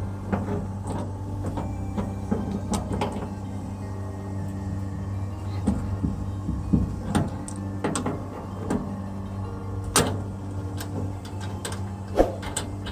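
A steady mechanical hum runs throughout, with irregular clicks and knocks over it, a few of them sharper, about ten seconds in and near the end.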